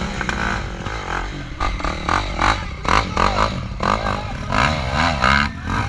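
Off-road motorcycle engine revving up and down as the bike is worked up a steep, muddy slope, with sharp clattering knocks from the bike scrabbling over logs and branches.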